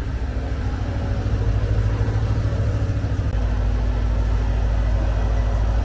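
A steady low machine rumble, like an engine or motor running, that settles into a deeper, steadier hum about three seconds in.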